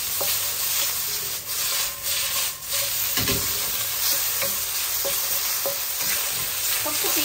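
Sliced beef sizzling in oil in a hot wok, stirred and tossed with a wooden spatula.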